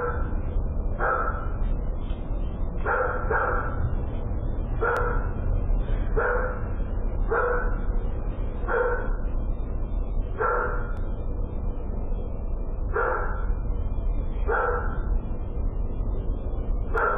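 A dog barking repeatedly: about a dozen single barks, irregularly spaced a second or two apart, over a steady low rumble.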